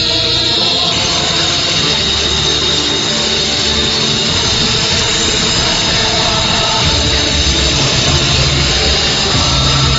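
Electric circular saw motor running at speed with a steady whine, over loud background rock music.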